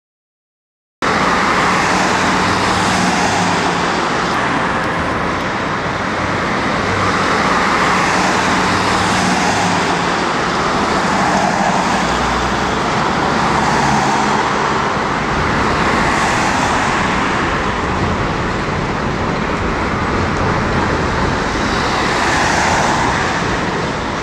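City street traffic: cars and a tram going by one after another, a steady wash of engine and tyre noise that swells as each vehicle passes. It cuts in suddenly about a second in.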